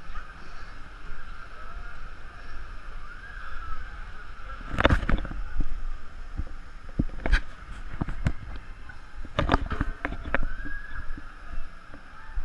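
Muffled outdoor sound heard through a sealed waterproof camera housing: a dull steady hiss with a few irregular knocks and thumps, the loudest cluster about five seconds in and more around nine to ten seconds.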